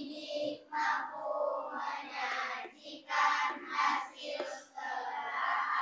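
A class of young schoolchildren reading aloud together in unison, a chanted chorus of voices in short phrases with brief pauses between them.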